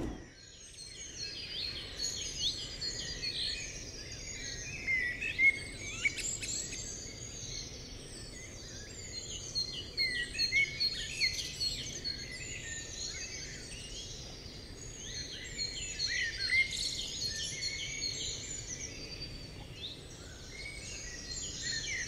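Many small birds chirping and twittering at once: a dense, unbroken chorus of quick high chirps over a faint background hiss.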